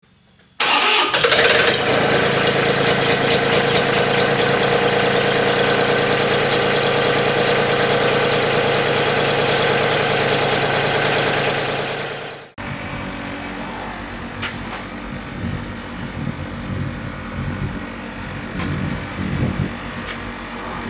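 Tractor engine starting with a sudden burst about half a second in, then running steadily at a constant speed; about twelve seconds in it gives way abruptly to the quieter, uneven sound of the tractor driving along, with a few sharp knocks.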